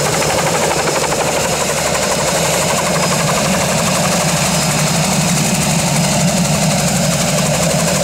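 Turbine-powered Bell 47 helicopter (Soloy conversion) hovering close by with a sling load: steady, rapid rotor blade chop over the turbine's running noise.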